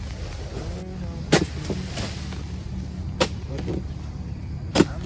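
Steel chisel blade on a long harvesting pole (dodos) chopping into oil palm frond bases and fruit-bunch stalks: three sharp strikes, spaced about one and a half to two seconds apart.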